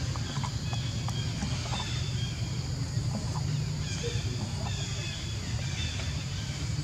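Outdoor ambience: a steady low rumble with faint scattered ticks and rustles and faint high chirps in the background.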